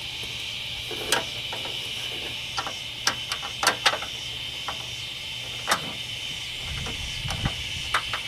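About ten sharp, irregular metallic clicks and taps of a wrench working a 10 mm nut loose, over a steady high chirring of crickets.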